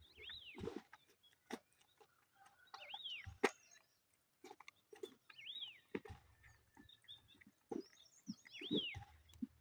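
A bird calling four times with a short high note that rises and falls, about every two and a half to three seconds, among scattered light clicks and soft low thumps.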